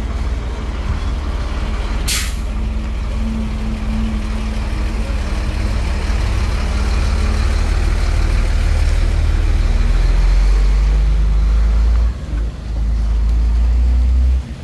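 Heavy diesel dump truck driving past close by, its engine a low rumble that grows louder as it passes. About two seconds in there is a short sharp hiss of its air brakes.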